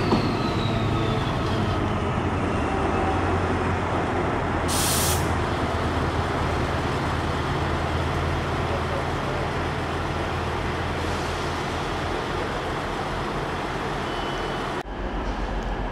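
TransPennine Express diesel train running through the station: a steady low engine drone under wheel and rail rumble. A whine falls in pitch over the first couple of seconds, and a short hiss of air comes about five seconds in.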